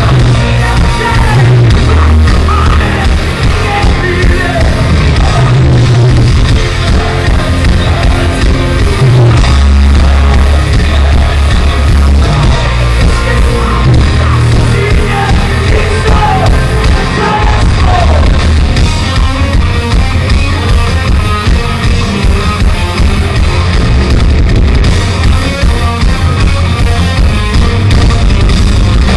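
Heavy metal band playing live and loud: distorted electric guitars, bass and drums, with yelled vocals at times.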